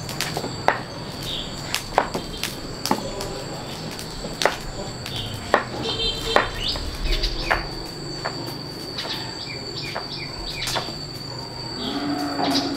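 Steady high-pitched insect drone, cricket-like, with sharp clicks and knocks at irregular intervals, about one a second.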